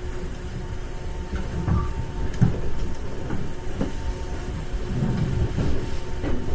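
Inside a JR 415 series 1500-subseries electric train car while it runs: a steady low rumble, with scattered creaks and knocks from the car body.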